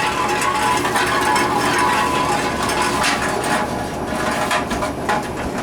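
Tomra T-x2 reverse vending machine mechanism running, a steady mechanical whir with rapid clattering and clicking.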